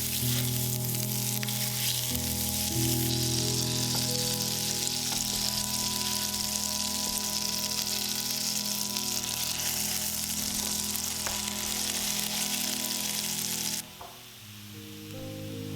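Food sizzling and frying in a hot pan under background music; the sizzle cuts off suddenly near the end, leaving only the music.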